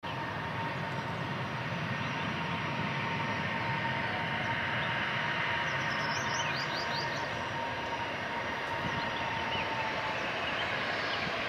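Boeing 737's twin jet engines running at taxi power, heard from afar: a steady rumble and hiss with a thin steady whine that fades about nine seconds in.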